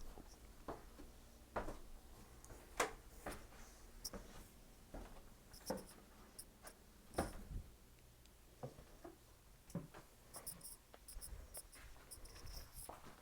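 Quiet handling noises: scattered light knocks and clicks with some rubbing and rustling, irregularly spaced over a faint low hum, with a quick run of rustles near the end.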